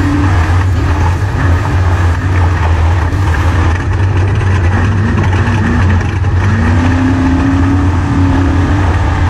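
Onboard sound inside a Trophy Truck's cab at racing speed: the engine runs hard, its revs rising and falling several times, with one longer climb near the end, under a dense rumble of road and wind noise.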